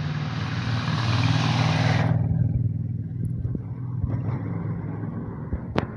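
Car driving past on the street: tyre hiss and engine noise build over the first two seconds, the hiss cuts off suddenly, and the low engine hum fades away. A single sharp click near the end.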